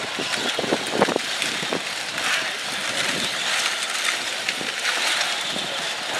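Battery-powered Power Wheels ride-on toy cars driving over gravel: a steady grinding and rattling of hard plastic wheels, with a couple of short knocks about a second in.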